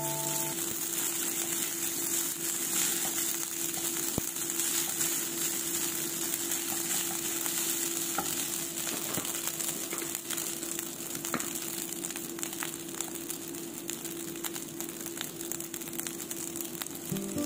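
Fried rice sizzling in a granite-coated frying pan while a slotted spatula stirs and scrapes through it, with scattered short clicks of the spatula against the pan.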